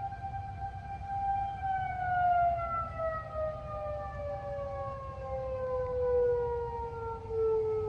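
Outdoor tornado warning siren sounding a steady tone, then from about a second and a half in sliding slowly down in pitch as it winds down.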